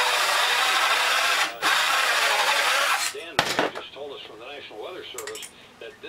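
A power tool working wood: a loud, steady noise with a brief break about halfway, stopping about three seconds in. A sharp knock follows, then a quieter wavering squeak that repeats about three times a second.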